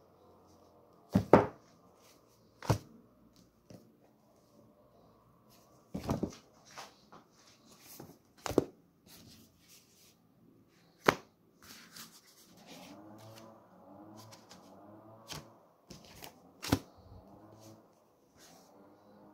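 Books and paper being handled: about seven sharp knocks at irregular intervals, with soft paper rustle between them. A faint wavering sound lasts for a few seconds in the background, a little past the middle.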